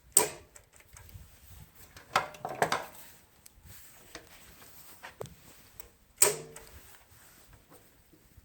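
A few separate knocks and clunks, the loudest just after the start and about six seconds in, with no engine running.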